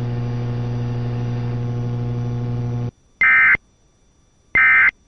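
A steady electrical hum that cuts off suddenly about three seconds in, followed by two short, identical bursts of Emergency Alert System SAME digital data tones, a little over a second apart. These are the end-of-message bursts that close an EAS alert.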